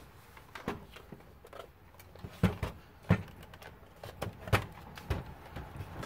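Several sharp knocks and clatter from a PS4's plastic casing and parts being handled and pulled apart, the loudest about two and a half, three and four and a half seconds in.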